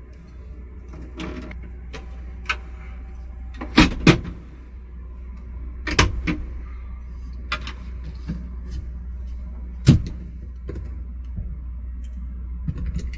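Sharp clicks and knocks, loudest about four, six and ten seconds in, as a tool works the temperature sensor out of the air intake of an RV air conditioner that keeps restarting. Under them runs the air conditioner's steady low hum.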